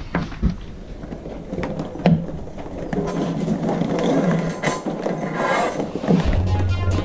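Wooden boards being handled on a workbench: a few sharp knocks and clatters of the boards against the bench and each other, with rustling in between. A low steady hum comes in near the end.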